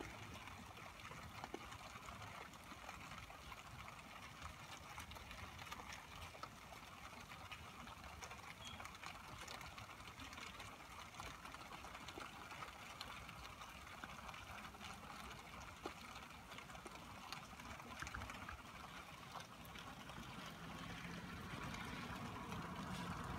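Steady rain falling on a street, an even hiss with scattered small drip and splash clicks. Near the end a passing vehicle grows louder.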